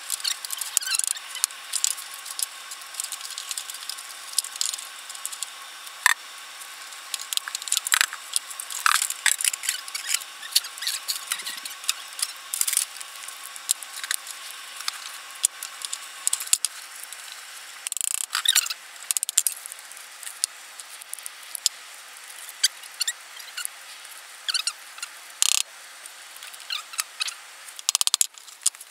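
Metalworking hand tools (hammer, pliers, vise) tapping, clinking and scraping on a toothed steel can-opener blade being shaped on a workbench. The sharp clicks and scrapes come in irregular clusters.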